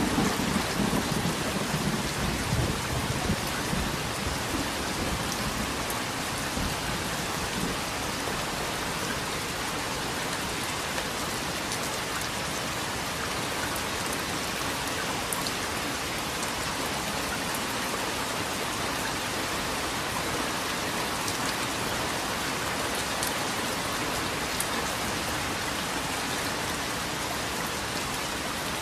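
Steady rain. A low rumble of thunder dies away over the first few seconds, and a few sharper single drips stand out later.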